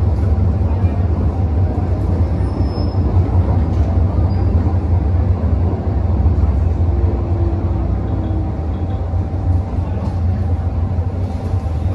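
Interior running noise of a Hong Kong MTR Metro-Cammell EMU (M-Train) underway: a steady low rumble from the wheels and running gear, with a faint steady whine above it.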